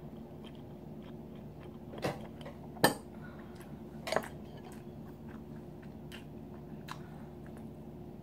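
Someone eating soup with a metal spoon: a few sharp clicks of the spoon against the bowl, the loudest about three seconds in, with quiet chewing and mouth sounds between them, over a steady low hum.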